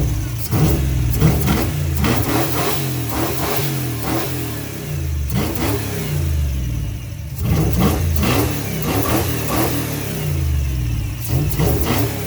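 A 351 cubic-inch (5.8 L) V8 breathing through a new 3-inch exhaust, running and being revved up and down repeatedly, in blips early on and again about halfway through.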